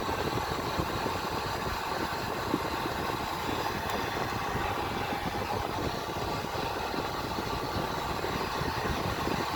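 Electric heat gun switched on and running steadily, its fan blowing hot air to shrink heat-shrink tubing over a twisted wire splice.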